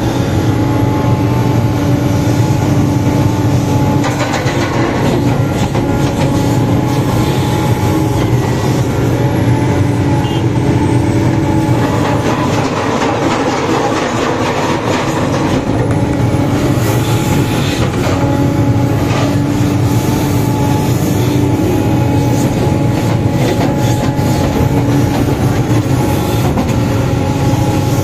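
Sumitomo 490 hydraulic excavator's diesel engine running steadily under load with its hydraulics whining, while the bucket digs and scrapes through soil with occasional knocks.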